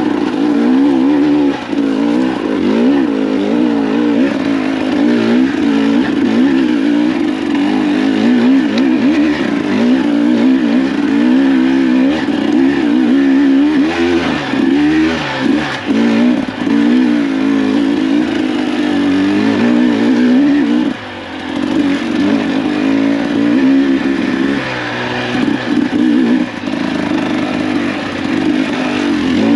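Two-stroke engine of a 2024 Husqvarna TE300 dirt bike being ridden. Its pitch rises and falls constantly as the throttle is worked, and about two-thirds of the way through it briefly drops off before picking up again.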